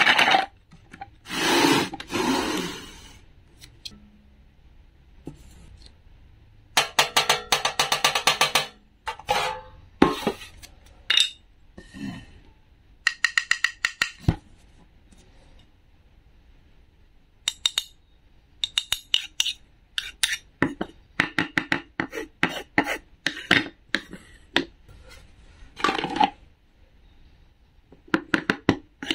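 Hard plastic and wooden toy fruit and vegetables clicking, knocking and rattling as they are handled, with a toy wooden knife and the pieces tapping on a wooden cutting board. The taps come in irregular clusters, with a dense run of rapid rattling about seven seconds in.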